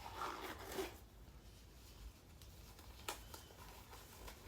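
Faint rustling of hands being cleaned and gloves being put on, with one light click about three seconds in.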